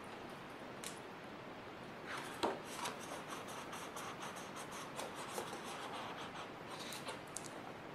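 Sheets of construction paper in a pad being turned over by hand: soft rustling and rubbing of paper against paper, starting about two seconds in, with a light slap of a sheet soon after.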